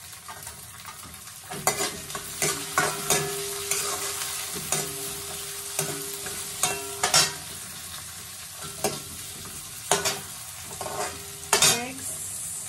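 Chopped carrots and peas sizzling in oil with fried onions in a steel kadhai, while a steel spoon scrapes and clinks against the pan and the plate, some strikes leaving a short metallic ring. Only the sizzle is heard for the first second and a half, then the clinks and scrapes come every second or so.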